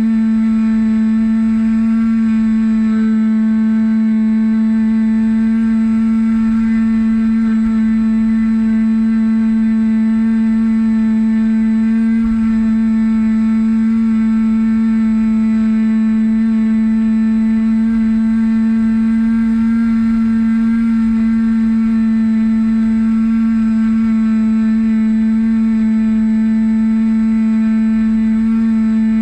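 Bixler 1.1 RC plane's brushless electric motor and pusher propeller running at constant throttle in flight: a loud, steady whine at one unchanging pitch, with a faint low rumble of wind on the wing-mounted camera.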